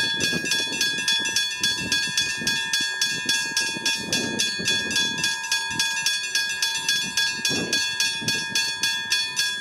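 Westinghouse hybrid level-crossing bell ringing rapidly and steadily, about three strikes a second, each strike carrying the same clear ringing tones.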